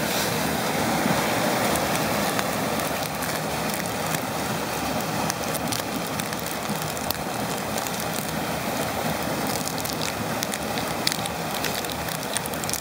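Steady rushing of a waterfall, with irregular crinkling and crackling of trading-card pack wrappers being torn open and handled.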